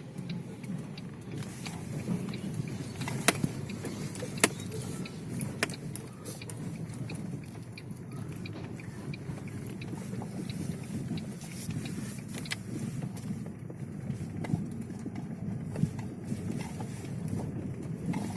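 Inside a Lada Vesta driving over a badly broken road: steady low tyre and road rumble with occasional light clicks from a dangling mirror ornament and a small icon on the windshield. No knocking comes from the front suspension, whose stabilizer bar and left stabilizer link have just been replaced.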